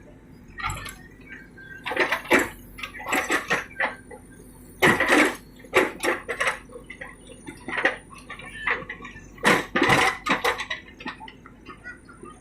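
Irregular clattering and clinking of hard objects knocking together, in a run of separate knocks with the loudest about five and ten seconds in, over a faint steady hum.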